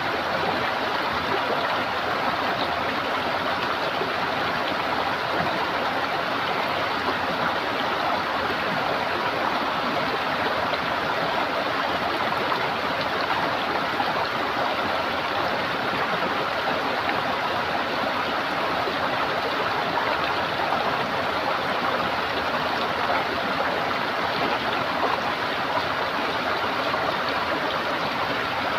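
Running water gurgling steadily, an even rushing with no breaks.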